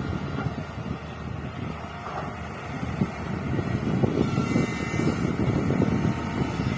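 Excavator's diesel engine running under work, a low, uneven rumble that grows louder about three to four seconds in.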